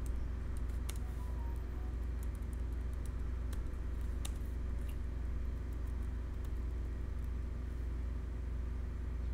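Computer keyboard typing: scattered, irregular keystroke clicks over a steady low hum.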